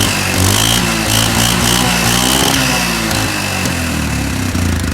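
Quad bike engine running, the revs rising and falling once about a second in, then settling back to a steady run. It runs after its rat-chewed ignition wiring was patched with temporary connectors.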